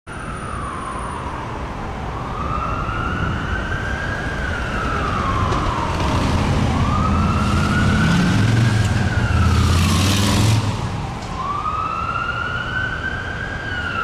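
Emergency vehicle siren sounding a slow wail that rises and falls about three times. Street traffic rumbles under it, louder in the middle, with a brief rush of noise about ten seconds in.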